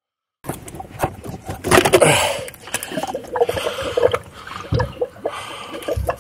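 Plastic coolant pipe being worked off the water pump housing of an Audi EA888 Gen 3 engine: clicks and scrapes of the fitting, with a short splashy rush about two seconds in as coolant spills out.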